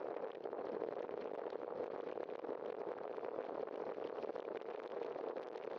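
Steady rolling noise from a bicycle riding on wet asphalt: tyre hiss and wind on the bike-mounted camera, with a fine crackle throughout.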